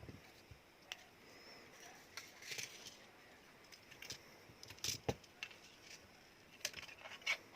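Scattered small clicks and taps of a smartphone's parts and tools being handled, about a dozen irregular ticks, with a cluster near the end.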